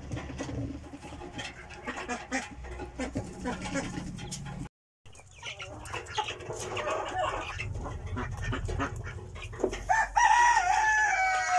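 Young Fayoumi-cross chickens chirping and clucking among scattered ticks, with a brief dropout to silence about five seconds in. About ten seconds in, a loud, drawn-out, wavering chicken call starts and is still going at the end.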